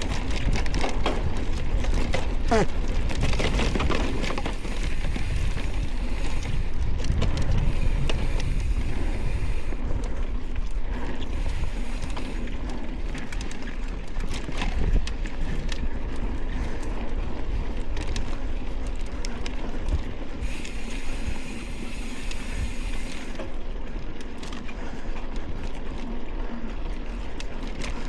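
Mountain bike rolling down a dirt forest trail: tyres on dirt and loose stones with scattered clicks and rattles, and wind on the microphone.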